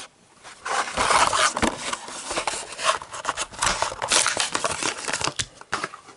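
Hot Wheels blister pack opened by hand: the clear plastic blister crackles and crinkles and the cardboard card tears, an irregular run of crackles and rustles that starts about half a second in.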